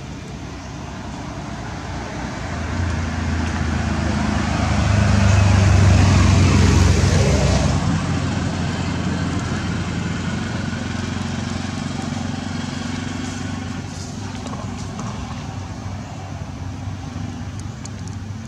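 A motor vehicle passing by: a low engine hum that grows louder to a peak about six seconds in, then fades back to a steady background drone.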